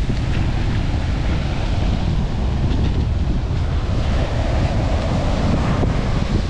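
Wind buffeting the microphone over the steady wash of surf running up the beach.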